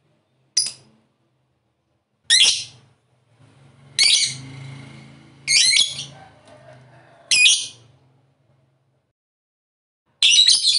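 A lovebird giving short, shrill squawking calls, about six of them, each lasting under half a second and spaced one to two seconds apart.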